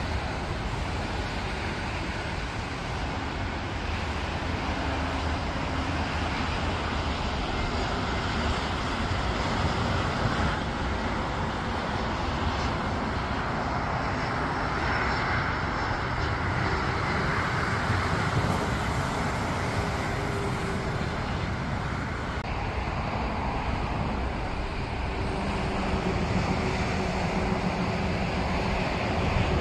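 Jet engine noise of an Airbus A321-211 on final approach, from its CFM56 turbofans. It is a steady rushing sound that grows to its loudest as the airliner passes close, about halfway through, then drops away. The higher hiss cuts off suddenly about three-quarters of the way through.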